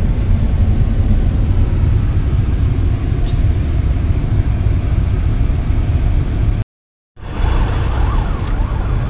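Excavator engine running, heard from inside the cab as a steady low rumble. It cuts out abruptly about seven seconds in; a steady rumble then resumes with a wavering tone rising and falling over it.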